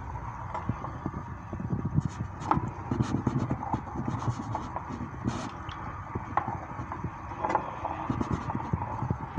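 A spoon stirring black-eyed peas and bacon in water in a crockpot: swishing water with irregular knocks and scrapes of the spoon and peas against the pot.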